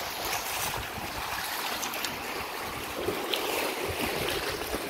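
Rushing river water around an inflatable raft in a steady, even wash, with wind on the microphone and a few faint splashes.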